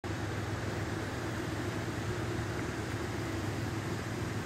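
A steady, low mechanical hum over a constant hiss, even throughout with no sharp impacts and no shots.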